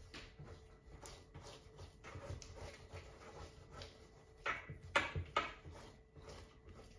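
Hands shaping a soft, sticky ball of pizza dough on a laminate counter: faint, irregular squishes and pats, with a few sharper clicks about four and a half to five and a half seconds in.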